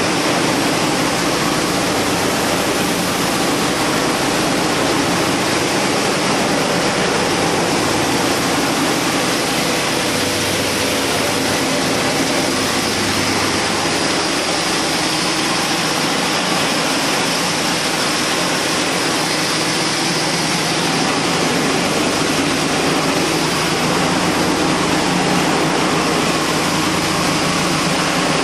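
MFS-500 high-speed plastic pulverizer (powder mill) running: a steady, loud rushing machine noise with a low hum underneath, unchanging throughout.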